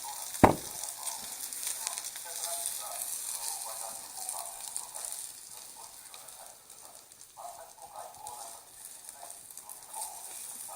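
Newspaper burning as campfire fuel in a pyramid fire grill, crackling and hissing steadily, with one sharp knock about half a second in.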